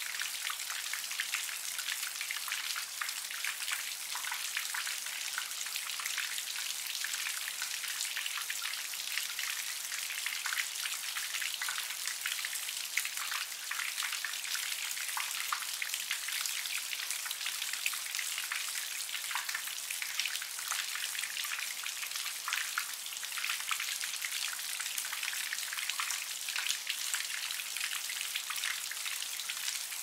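Light rain shower falling onto wet paving stones and shallow puddles: a steady, mostly high-pitched hiss made of countless small drop impacts.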